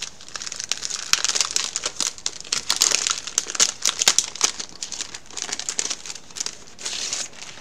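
Packaging crinkling as it is opened and handled: a dense, irregular run of small crackles.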